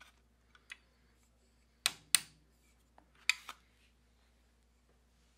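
Hammer striking a punch to drift a pistol's factory rear sight out of its dovetail in the steel slide: two sharp metal knocks about a quarter second apart near two seconds in, and a third about a second later, each with a short ring, with a few light clicks between.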